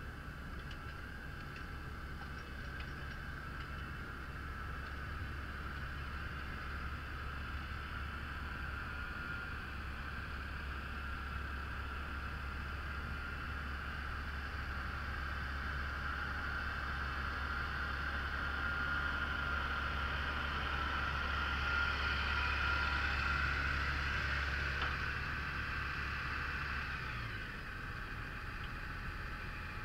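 Massey Ferguson 7485 tractor working under load pulling a plough and furrow press, heard from the press: a steady deep drone with a rushing hiss over it. It grows louder through the middle and eases off a few seconds before the end.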